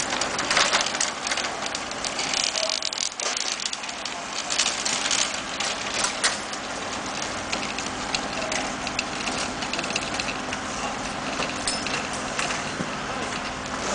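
Wheeled metal racks and trolleys rattling and clattering as they are rolled over concrete, with many small clicks and knocks throughout, over a faint steady hum.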